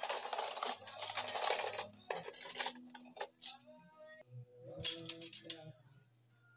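Background music over bouts of rustling and clinking as kitchenware is handled at a plastic dish rack.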